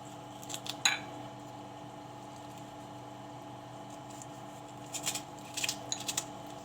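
Knife slicing a lemon into rounds: a few sharp clicks just before one second in and a quick cluster of clicks near the end, over a steady faint hum.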